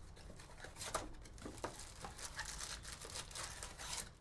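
A cardboard trading-card hobby box being torn open and its card packs rustling and crinkling as they are handled and pulled out, in short scattered rips and rustles.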